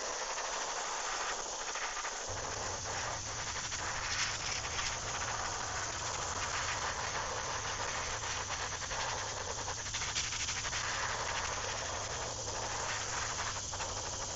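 Airbrush spraying white paint onto a lure blank, a steady hiss of air. A low hum joins about two seconds in.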